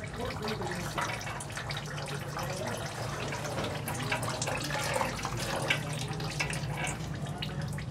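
Used engine oil running and dripping from a Suzuki Cultus oil filter as it is unscrewed, a steady trickle and splatter with small irregular splashes, over a steady low hum.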